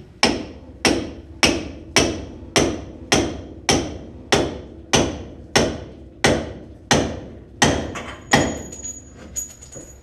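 Mini sledge hammer striking steel in a steady rhythm, about fourteen hard blows roughly every 0.6 s, to break loose a 1970 Chevy Nova's upper ball joint from the spindle; the joint stays stuck. The blows stop about 8.5 s in, leaving a faint high metallic ring.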